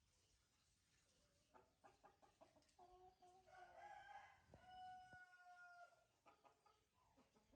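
A faint, drawn-out animal call in several parts, ending in a long held note, with a few faint clicks before and after it.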